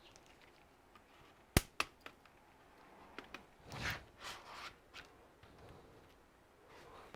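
Two sharp clicks, then a few light ticks and a stretch of scraping and rustling as the plastic case parts of a laptop are handled and pried during disassembly.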